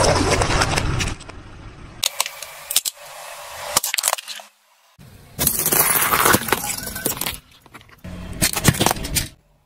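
A car tyre rolling over and crushing objects in several short takes: plastic cups of soda squashing and splashing, then hard plastic and metal cracking and crunching, and near the end glass light bulbs shattering under the wheel.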